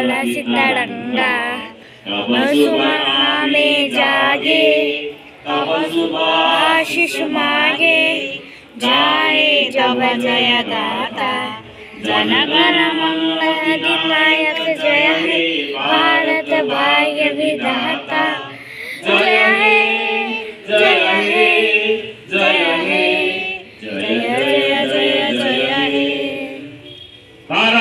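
A group of adults and children singing a patriotic song together, the voices moving in long phrases with short pauses for breath between them.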